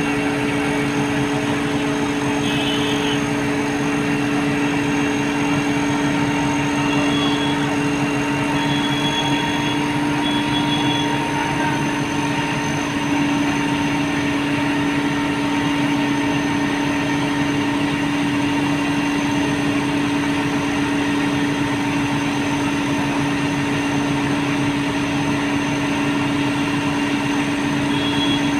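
Truck-mounted hydraulic mobile crane's diesel engine running steadily, a constant even hum that does not change.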